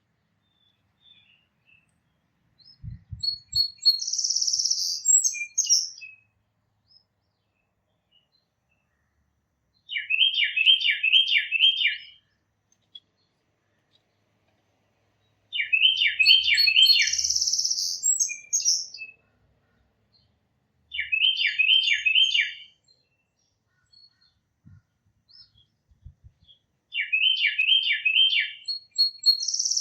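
Songbirds singing in phrases a few seconds apart: quick runs of about five falling whistled notes, alternating with a higher, denser trilled phrase.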